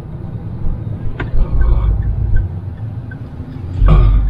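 Mahindra Thar driving, heard from inside the cabin: a steady low engine and road rumble that swells twice, with a single sharp knock about a second in.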